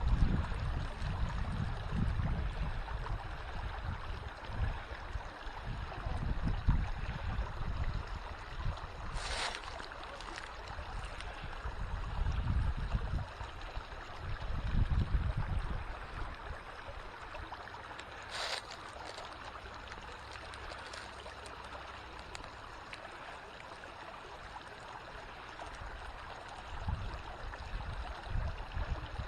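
A small creek running and trickling steadily, with gusty wind rumbling on the microphone now and then. Two short sharp clicks come about a third of the way in and again past the middle.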